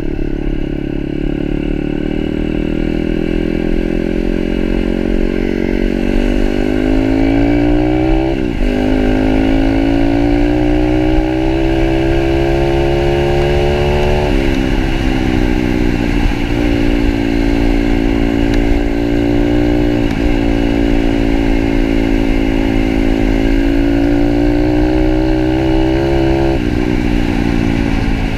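Pitster Pro 160cc pit bike's single-cylinder four-stroke engine running under load while riding, revs climbing and then dropping sharply about eight seconds in, again around fourteen seconds, and once more near the end, holding fairly steady in between.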